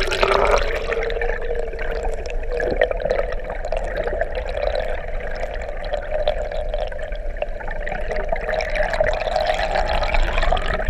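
Muffled underwater sound picked up by a GoPro in its waterproof housing held below the surface: water rushing and bubbling past the camera, with the boat's motor humming steadily underneath.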